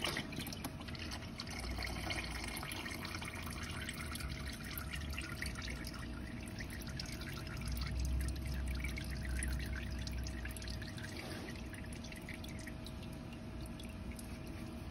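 Used engine oil dripping and trickling from a freshly unscrewed spin-on oil filter and its housing: many small drips over a steady trickle. A low rumble comes and goes twice.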